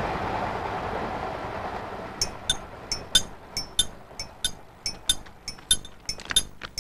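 A passing railway train's rumble fades away over the first two seconds. Then comes a regular run of bright, ringing metallic clinks, about three a second.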